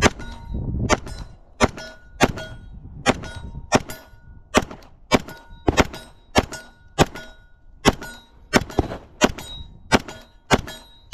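A Glock 17 Gen 4 9mm pistol firing a steady string of shots, about two a second. Steel targets ring briefly with a clear tone after many of the hits.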